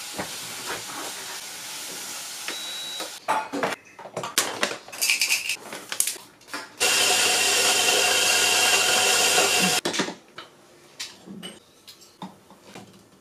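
A steady hiss, then clicks and knocks of espresso gear being handled, then an electric coffee grinder running steadily for about three seconds before cutting off, followed by light taps.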